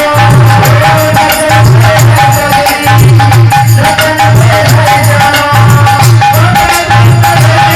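Loud DJ remix music: a heavy, repeating bass beat under fast rattling percussion and a held high melody line, with no singing.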